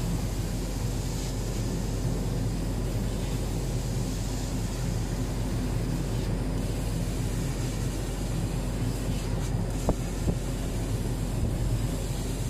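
Double-head 130 W CO2 laser cutter running as it cuts PVC tarpaulin: a steady machine hum with an even hiss of air, and a couple of faint clicks about ten seconds in.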